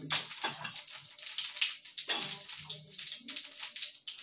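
Cumin seeds sizzling and crackling in hot oil in a kadai on a gas stove, as asafoetida is added to the tempering.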